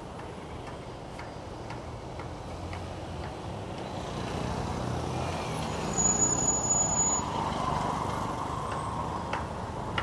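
Road traffic: cars and other vehicles passing close by with a steady engine rumble and tyre noise. It grows louder through the middle and is loudest about six seconds in.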